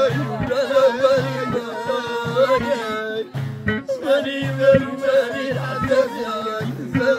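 Live Arabic folk song: a man sings a wavering melody to violin, while a frame drum and a darbuka beat a steady rhythm. The voice breaks off briefly about halfway through, then the singing resumes.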